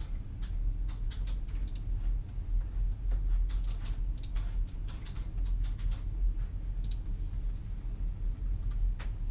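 Computer keyboard typing in short irregular runs of keystrokes, with mouse clicks, over a steady low hum of office room tone.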